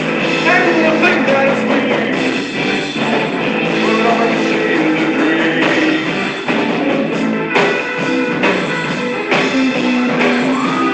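Rock music led by guitar, playing loudly and continuously.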